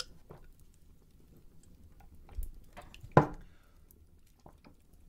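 Quiet room with faint scattered clicks and soft handling sounds, broken by one sharp knock a little over three seconds in.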